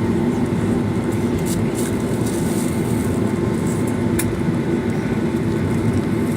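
Steady rumble of a jet airliner heard from inside the passenger cabin, with a few faint clicks and rattles.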